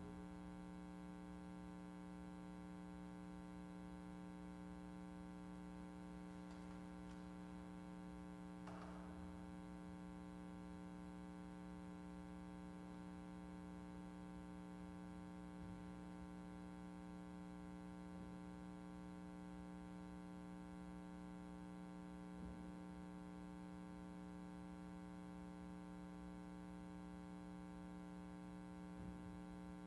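Low-level steady electrical hum, a few fixed tones held unchanged, with a few faint brief sounds, the clearest about nine seconds in.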